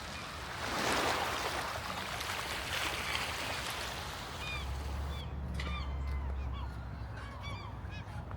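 Birds calling in many short, repeated calls, with a rush of noise about a second in and a low rumble midway through.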